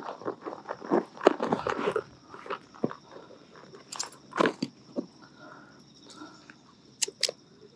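Catfish thrashing against dry grass and leaves while held in a metal fish grip: a quick run of rustling crunches and clicks in the first two seconds, then a few scattered clicks.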